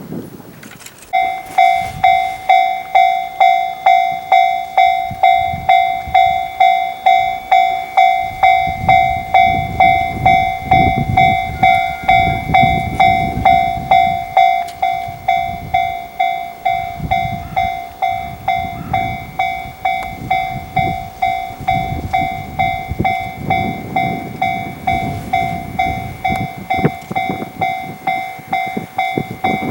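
Japanese level-crossing warning bell ringing steadily, about two dings a second, starting about a second in. Underneath, a gusty low rumble rises and falls as a 12-car E353 series express train runs past, with wind buffeting the microphone.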